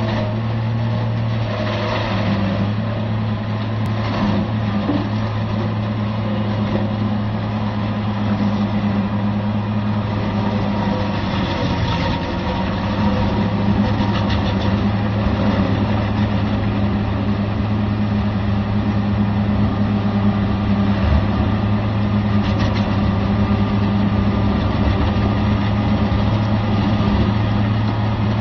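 Valtra tractor's diesel engine running steadily while it drives a rotary stump-milling drum that grinds stumps and roots, with a few sharp knocks from the debris. The engine gets a little louder about halfway through.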